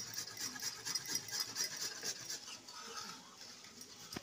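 Fresh ginger rubbed back and forth on a flat stainless-steel hand grater, a rasping scrape of quick repeated strokes, grating the ginger into a paste by hand.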